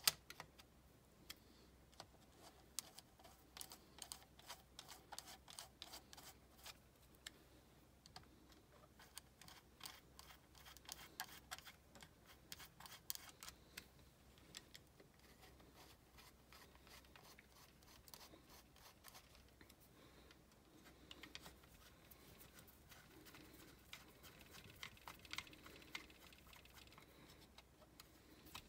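Faint, irregular light clicks and scrapes of a hand screwdriver turning and seating the air horn screws on a Quadrajet four-barrel carburetor.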